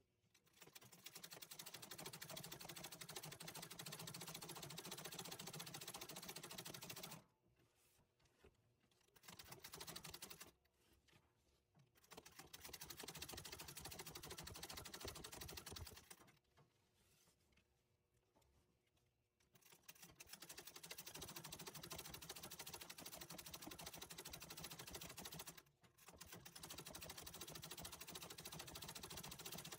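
Antique treadle sewing machine stitching in runs of several seconds, with short stops between them, as it does free-motion embroidery on fabric stretched in a hoop.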